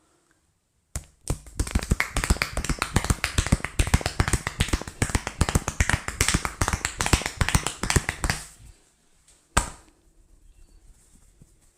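Rapid percussive hand tapping on the head in a barber's head massage: a fast run of sharp slapping pops, many a second, lasting about seven seconds, then one single sharp hit a second later.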